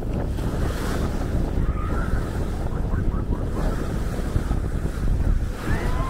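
Baltic Sea waves washing onto a sandy beach, with wind rumbling on the microphone.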